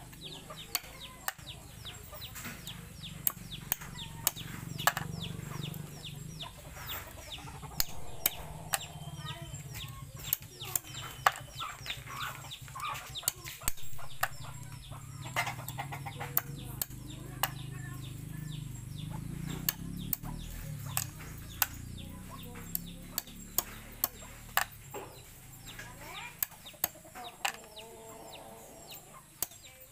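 Large kitchen knife chopping the shell tips off freshwater snails on a wooden stump block: an irregular run of sharp knocks, quicker in places. The tails are cut off so the snail meat can be sucked out after cooking.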